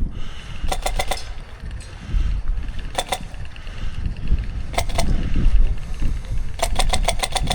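Airsoft electric gun firing short full-auto bursts of rapid clicking shots: a few shots about a second in, two short bursts in the middle, and a longer burst near the end, at roughly ten shots a second.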